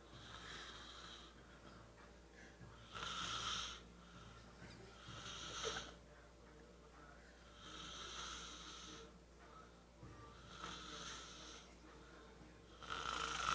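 Quiet, slow snoring: a raspy snore on each breath, about every two and a half seconds, six in all, the strongest about three seconds in and near the end.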